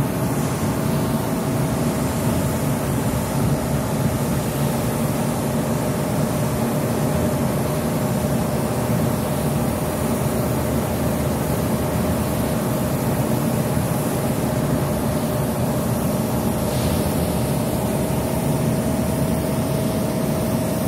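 Steady, loud drone of heavy machinery, with one constant whine running through it.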